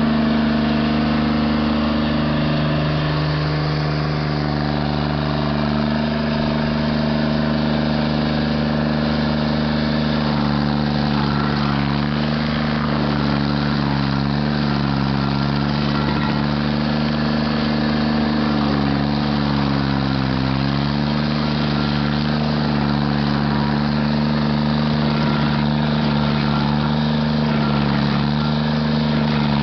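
Stump grinder engine running steadily. Its pitch sags briefly a few times, around the middle, as it takes load, then comes back up.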